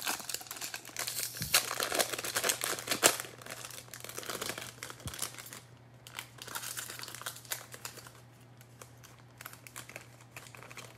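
Foil wrapper of a 2021 Bowman jumbo hobby card pack being torn open and crinkled, loudest in the first few seconds. Lighter crinkling follows as the cards are slid out of the wrapper, then only a few scattered rustles.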